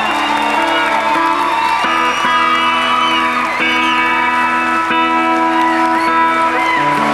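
Solo electric guitar playing slow, ringing chords that change about once a second, with no drums.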